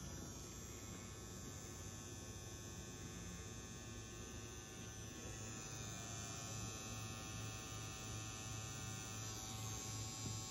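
Rotary tattoo pen running with a faint, steady motor hum while its needle lines a tattoo into skin.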